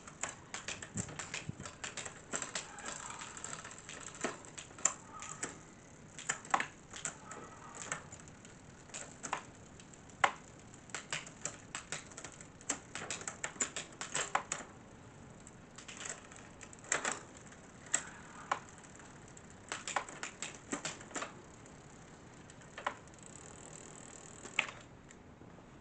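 Campagnolo 9-speed rear shifting being tested after a cable replacement: a run of sharp, irregularly spaced clicks from the shift lever and the chain changing cogs, tapering off near the end.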